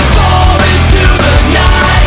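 Loud hard-rock music.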